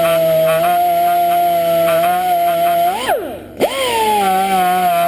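Pneumatic air tool spinning a steel wire brush against an engine valve to scrub off carbon grime: a steady high whine. About three seconds in it speeds up, winds down and cuts out for a moment, then spins up again and settles back to its steady pitch.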